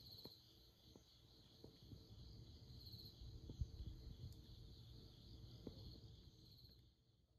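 Faint night ambience: insects trilling steadily and high, over a low rumble, fading out near the end.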